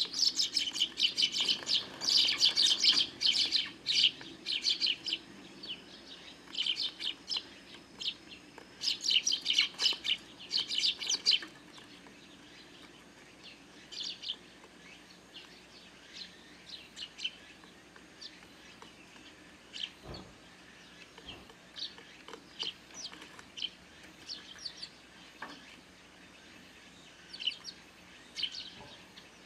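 A flock of Eurasian tree sparrows chirping, with many short high chirps overlapping densely for about the first eleven seconds, then thinning to scattered single chirps.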